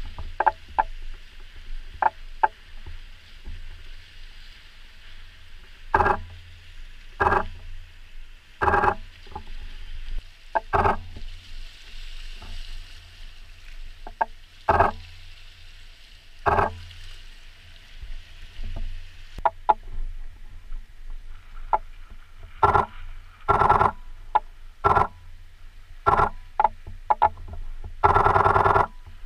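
A flock of gulls calling over choppy sea: many short cries, singly or in quick runs, with one longer call of about a second near the end. Waves wash against the rocky shore beneath them, with a low rumble.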